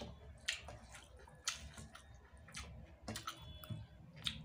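Faint close-up eating sounds of a person chewing rice and vegetables eaten by hand: soft wet mouth clicks and smacks, irregular, about one a second, over a low steady hum.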